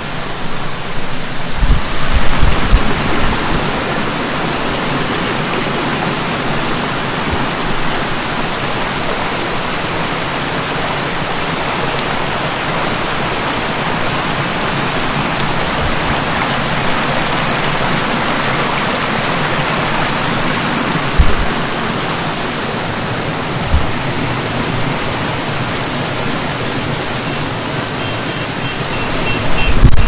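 Small waterfall pouring steadily, a constant rush of falling water, with a few low thumps about two seconds in and twice past the twenty-second mark.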